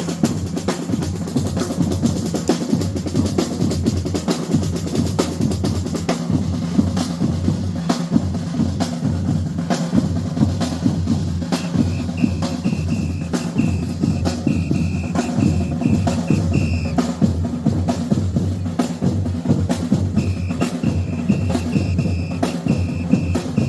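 Batucada drum group playing a fast, dense rhythm: deep bass drums under rapid snare strokes. A high steady tone is held twice for several seconds in the second half.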